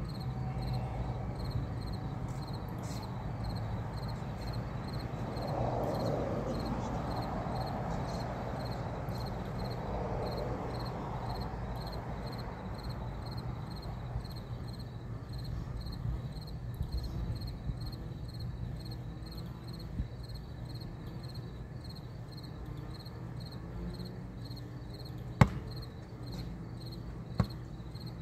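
Insects chirping in a steady, fast pulse over a low outdoor rumble. Near the end, a basketball bounces twice on the concrete court with sharp slaps.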